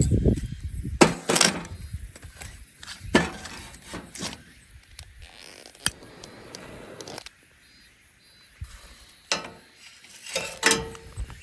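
Scattered light knocks, clicks and rattles of small objects being handled, a second or more apart, with quiet stretches between.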